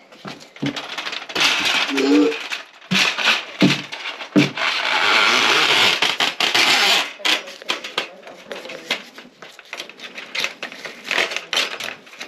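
Metallic clattering and rattling as a drain auger and its cable are handled and set down, with a stretch of steady hissing noise in the middle.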